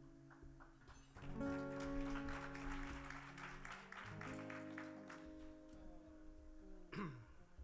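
Acoustic guitar playing quietly: a chord comes in about a second in and rings, then a second chord enters about four seconds in and rings on, with light strumming in between.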